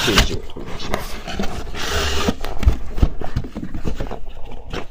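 Rummaging in a cardboard box: cardboard flaps and sides scraping, rubbing and knocking, with a longer scraping rub about two seconds in.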